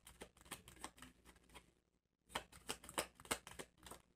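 A deck of tarot cards being shuffled by hand: a run of quick, faint card clicks and flicks, with a short pause a little before halfway.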